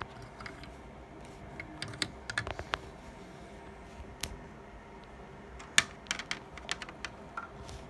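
Irregular light plastic clicks and taps from Lego pieces and the camera being handled. They come singly and in small clusters, loudest about two and a half seconds in and again near six seconds, over a faint steady hum.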